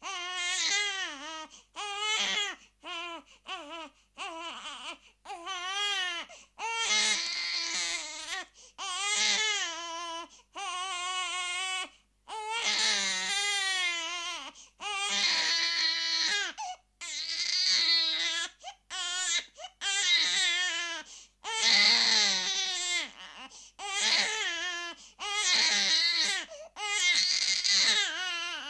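A baby crying in a long series of wails, each cry a second or two long with a wavering pitch, broken by short gasps for breath; the cries grow longer and louder in the second half.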